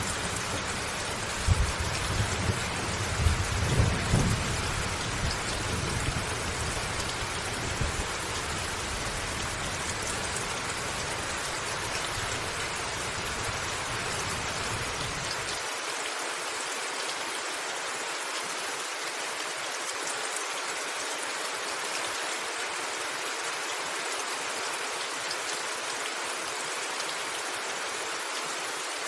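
Steady rain falling on a roof, an even hiss throughout. Rolling thunder rumbles under it in the first half, with a few louder swells in the first five seconds. The rumble cuts off suddenly about halfway, leaving only the rain.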